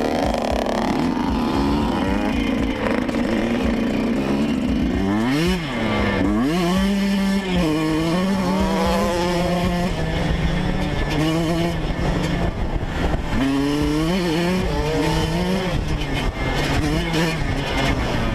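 Single-cylinder two-stroke engine of a 2012 Yamaha YZ125 motocross bike running under throttle, its pitch climbing and dropping repeatedly, with a quick rev up and back down about five seconds in.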